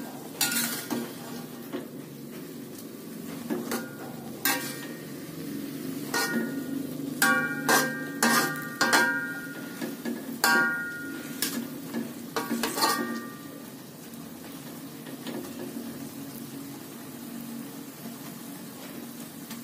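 Metal spatula scraping and clinking against an aluminium wok as water spinach is stir-fried, the ringing clinks coming thickest through the middle, over a low steady sizzle from the pan.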